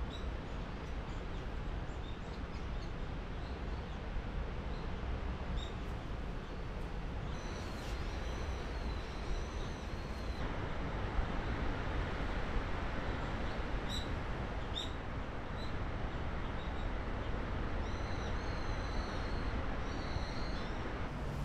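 Outdoor ambience: a steady rushing noise, with birds giving short high chirps a few times, about eight seconds in and again near the end.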